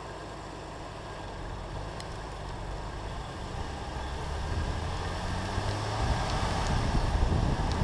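BMW M2 Competition's twin-turbo straight-six running at low, steady revs, growing louder as the car gets going. From about six seconds in, wind buffets the microphone in rough gusts.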